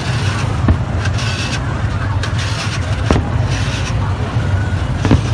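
Busy street traffic, with vehicle engines running steadily under a constant noise of the road. A few sharp pops stand out about a second, three seconds and five seconds in.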